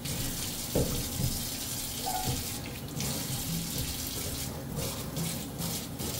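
Water from a faucet running steadily into a stainless steel sink, splashing on the metal basin as it is rinsed out by hand.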